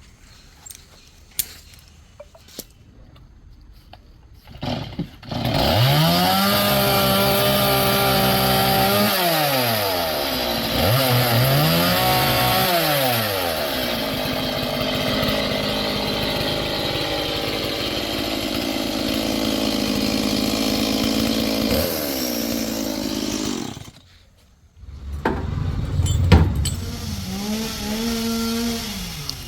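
Stihl two-stroke chainsaw starting about five seconds in and revving up and down several times, then running steadily at high speed before cutting off suddenly. After a short pause it is started again with a loud knock and revs up once more near the end.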